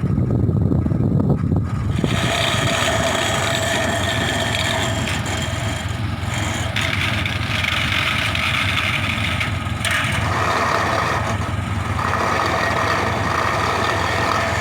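Case 580K backhoe loader's diesel engine running steadily. About two seconds in the sound brightens, with a steady higher-pitched whine added over the low running.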